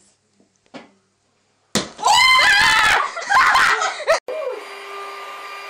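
A sudden sharp bang about two seconds in as a roasting chestnut bursts, followed by about two seconds of loud, high-pitched screaming. It cuts off abruptly and a steady hum with a faint held tone begins.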